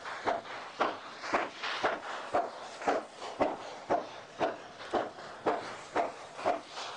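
Footsteps walking at a steady pace, about two steps a second, each step a short scuffing crunch.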